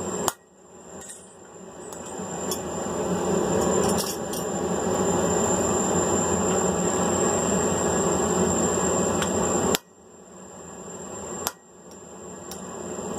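Three sharp hammer blows on a hot punch being driven into mild steel flat bar on an anvil, one near the start and two close together near the end, each ringing briefly, over a steady rushing noise.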